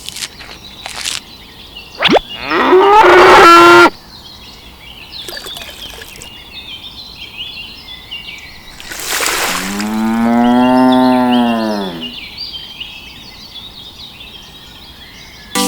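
Cattle mooing twice: a shorter, higher moo about two seconds in, then a longer, lower moo that rises and falls in pitch.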